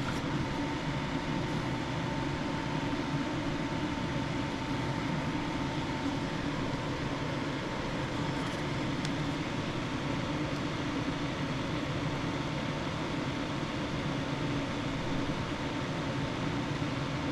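Steady mechanical hum with a faint high whine in it.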